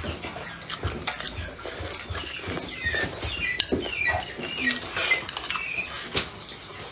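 Close-miked eating: chewing with chopsticks clicking against a bowl. Several short, high squeaky chirps come in the middle.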